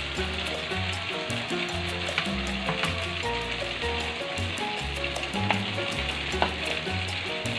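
Chili and tomato paste sizzling as it fries in a steel wok, with a few sharp clicks of a metal spatula against the pan. Background music with a steady bass line plays throughout.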